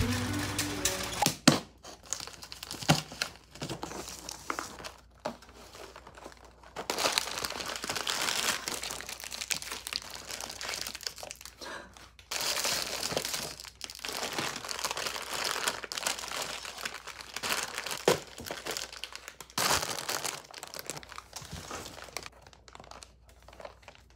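Crumpled kraft packing paper and plastic wrappers crinkling and rustling as a cardboard box is unpacked by hand, in irregular bursts with a few sharp clicks.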